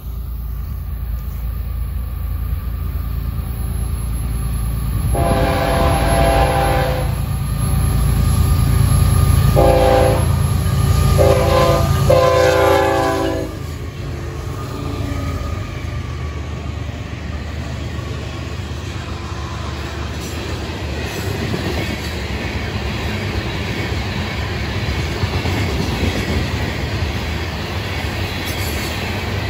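Florida East Coast Railway freight train at a grade crossing. The lead locomotive sounds its horn in four blasts, the first and last longest, over a deep engine rumble that peaks as the locomotives pass. After that the freight cars roll by with a steady rumble and clickety-clack of wheels on the rails.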